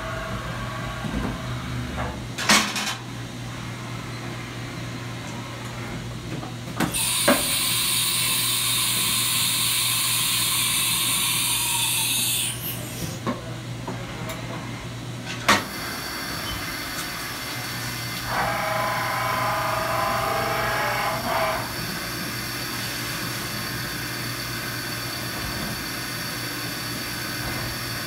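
1998 Haas HS-1RP CNC horizontal mill running through a tool change over a steady electrical hum. Sharp clunks come about 2.5, 7 and 15.5 seconds in, with a loud air hiss lasting about five seconds between the second and third. From about 16 seconds a steady high whine sets in, with a whirr for about three seconds near 19 to 21 seconds.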